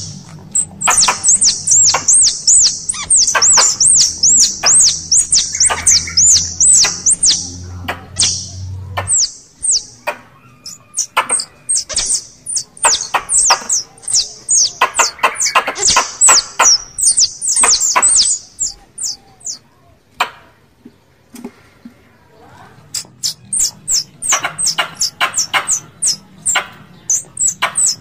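Squirrel calls played as a hunter's lure: quick runs of high, sharp chirps in three bouts, with short pauses between them.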